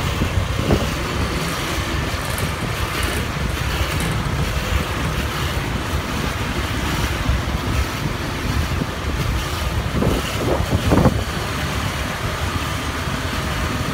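Motor scooter riding through slow, dense city traffic: its engine running under a steady rumble of wind on the microphone, with the surrounding cars and motorbikes heard in the mix. About ten seconds in there is a brief rise in engine pitch.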